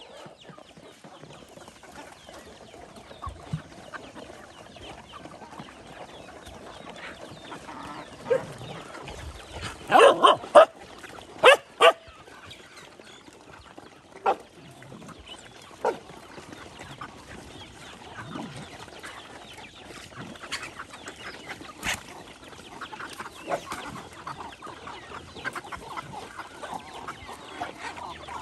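Many dogs feeding together, with steady small chewing and shuffling sounds and chickens clucking among them. A quick cluster of short, loud, sharp sounds comes about ten to twelve seconds in, and a few single ones fall here and there.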